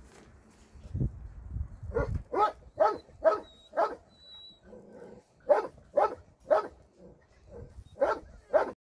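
Dog barking in short runs of several sharp barks, about two a second, after a few low knocks in the first two seconds.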